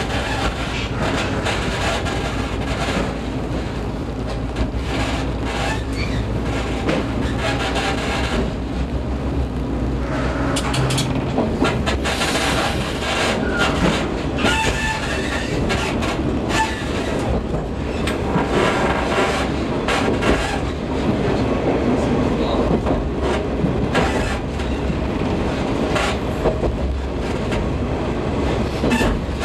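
Diesel railcar running, heard from inside the driver's cab: a steady low engine hum under the wheels clicking over rail joints.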